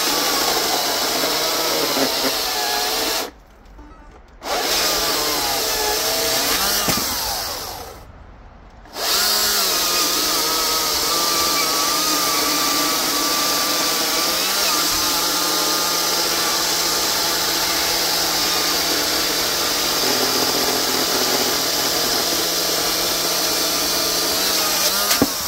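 Greenworks 82V 82CS34 battery chainsaw cutting through a red oak log: a steady electric motor and chain whine whose pitch wavers as the chain loads in the wood. It drops out briefly twice, about three and eight seconds in, then runs steadily for the rest of the cut.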